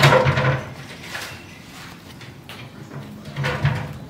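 Scraping and clattering, loudest at the start and fading within about half a second, with a second smaller burst about three and a half seconds in.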